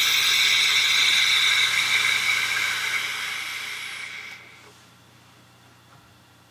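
Long draw on a Vapeston Maganus DVC sub-ohm tank with a 0.2 ohm dual coil at 50 watts: air hissing through its wide-open airflow, with a faint whistle, tapering off and stopping about four and a half seconds in.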